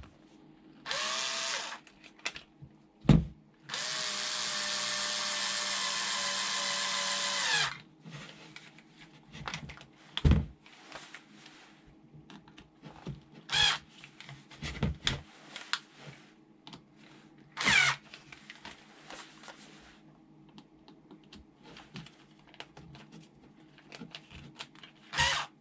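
Small electric screwdriver running in two bursts: a short one about a second in and a longer one of about four seconds starting near four seconds in, its whine steady and sagging slightly in pitch before it stops. Scattered clicks and knocks follow.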